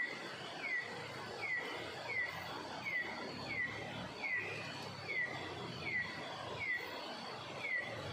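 A bird calling over and over, a short falling chirp about once every 0.7 seconds, with a faint steady high tone behind it.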